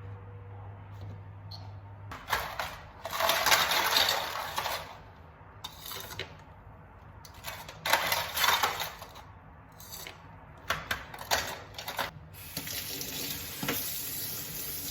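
Water from a tap splashing into a sink in a few spurts, with short clinks of dishes, then the tap running steadily near the end. A low hum stops about two seconds in.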